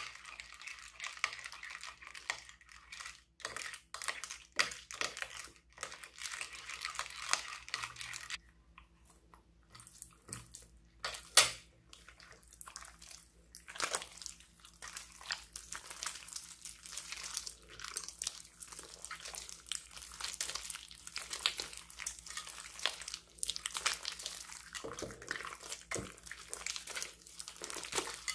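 Crunchy slime mixed with small foam beads being squeezed and kneaded by hand, giving a dense, irregular crackling and popping. It goes quieter for a moment about a third of the way in, then one sharp, loud pop.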